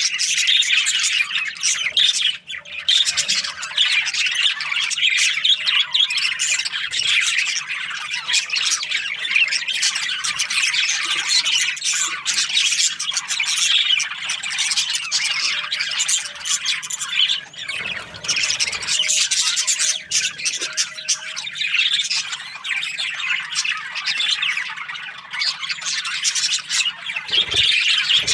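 Budgerigars chattering and chirping continuously, a dense overlapping mix of high chirps and squawks from several birds.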